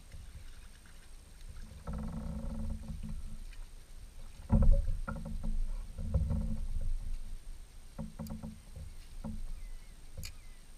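Water slapping against a plastic sit-on-top kayak's hull in uneven low pulses, with scattered knocks on the hull; the loudest knock comes a little under halfway through.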